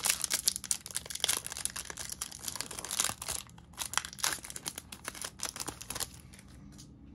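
Plastic trading-card pack wrapper crinkling and being torn open by hand, a dense run of rapid crackles that eases off about six seconds in.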